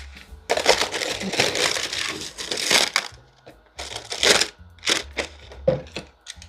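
Sheet of mixed-media paper crinkling and rustling as it is pressed down and smoothed onto a wooden panel: a long rustle, then three short crinkles.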